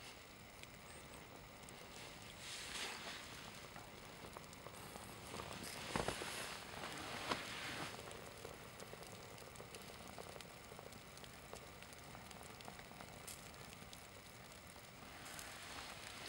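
Small flames on a burning synthetic (polyester/nylon) sports shirt, faintly crackling and hissing as the fabric melts, with two sharp pops about six and seven seconds in.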